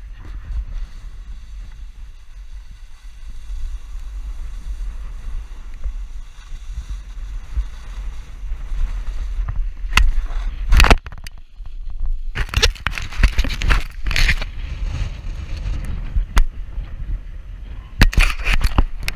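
Wind rumbling on a helmet camera's microphone and a snowboard sliding and scraping over snow. A loud hit comes about ten seconds in, followed by louder bursts of scraping, and again near the end.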